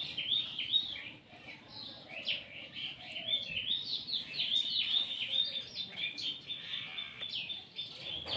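Many small birds chirping at once: a dense, overlapping run of short high chirps.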